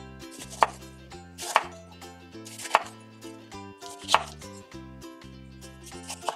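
Chef's knife slicing through ripe tomatoes and striking a wooden cutting board: five sharp knocks, one roughly every second or so.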